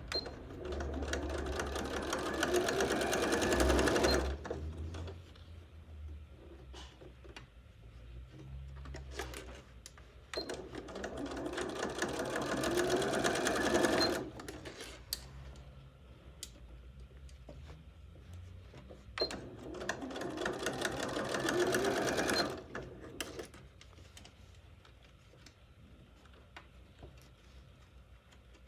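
Janome computerised sewing machine stitching bias binding onto a quilted bedspread in three runs of about three to four seconds each. Each run has a rapid even stitch rattle, and the motor's whine rises in pitch as it speeds up. Between the runs come quieter fabric handling and small clicks.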